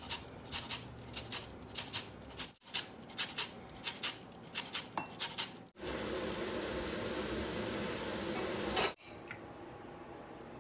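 Lemon zest being grated on a fine metal hand grater: a quick run of short scraping strokes, about three or four a second, for the first half. It cuts to a steady sizzle of butter cooking salmon in a stainless pan, which stops abruptly just before the last two seconds. That gives way to faint spoon-on-plate scraping.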